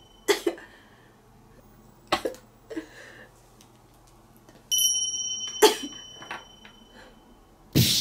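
A person coughing and sniffing in short, sharp bursts, several times, as ground pepper irritates her nose. The loudest burst comes near the end. A steady high beep-like tone sounds for about two seconds in the middle.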